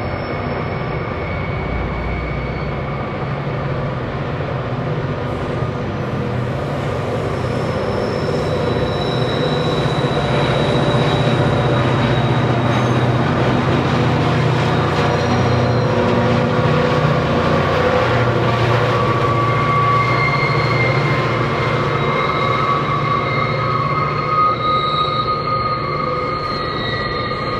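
Streamliner diesel-electric locomotives, including a CLP class unit, working hard as they haul a heavy freight train up a steep grade past close by. The engine sound builds to its loudest as the locomotives pass in the middle, then the freight wagons roll by with a high-pitched wheel squeal on the curve near the end.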